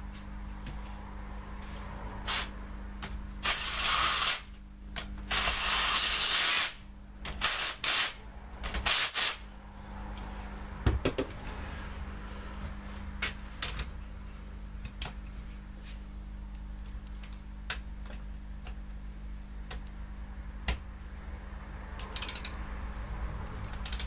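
Four short hissing sprays between about 3 and 9 seconds in, the longest about a second and a half, then scattered light clicks and knocks from work at the bench.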